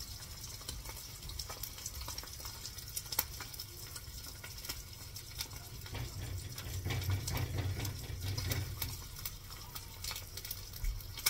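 An egg frying in butter in a nonstick pan, sizzling steadily with scattered small pops and crackles.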